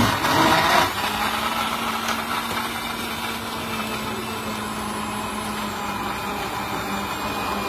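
Electric blender (Sujata mixer-grinder) running, whipping milk and coffee into cold coffee. It is louder and harsher for about the first second, then settles into a steady motor hum with the whirl of the liquid.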